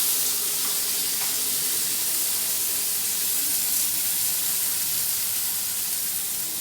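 Pan of hot mustard oil sizzling with a steady hiss as poppy-seed paste and fried pointed gourd cook in it; the hiss eases off slightly toward the end.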